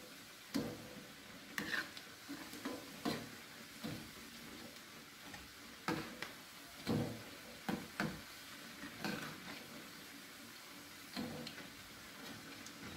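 Corn fritters frying in hot oil in a wok: a steady sizzle, with a dozen or so irregular clinks and knocks of a metal spatula against the pan.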